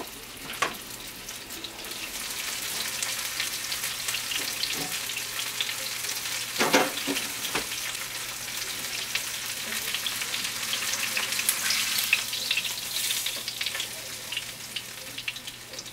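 Furikake-crusted ahi tuna steak searing in hot canola oil in a small nonstick pan: a steady crackling sizzle that grows louder about two seconds in. A couple of sharp clicks come through, about a second in and again near the middle.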